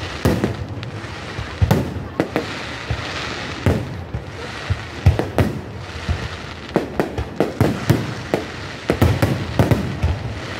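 Aerial fireworks shells bursting in an irregular series of sharp bangs, coming thicker and faster in the second half.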